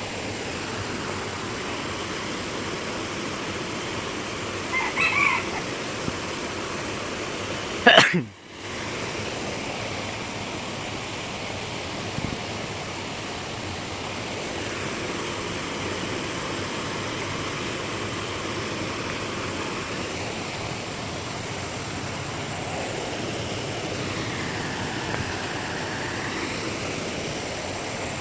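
A steady, even rushing noise. A short chirp comes about five seconds in, and a single sharp click about eight seconds in.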